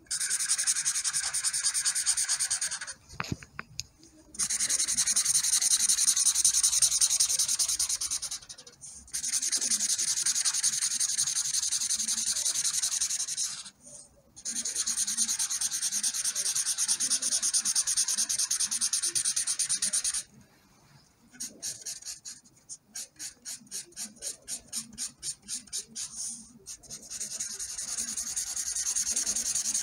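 Felt-tip marker scribbling back and forth on paper, a steady scratchy rubbing broken by brief pauses. In the second half it changes to quick short strokes at about four a second, then goes back to steady scribbling near the end.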